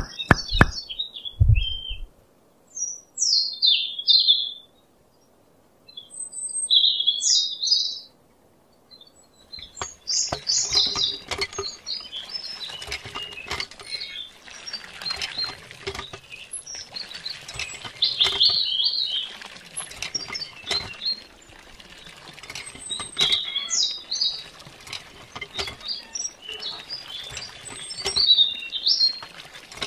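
Birds chirping, with a thin stream of water from a miniature hand pump splashing into a small pool from about ten seconds in. A music beat ends about two seconds in.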